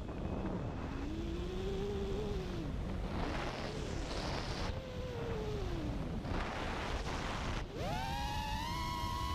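FPV racing quadcopter's Emax 2306 2400KV brushless motors spinning APC 5x4x3 props, heard through the onboard GoPro over a rushing wind noise. The motor whine rises and falls twice as the throttle is worked, then climbs sharply near the end and holds high.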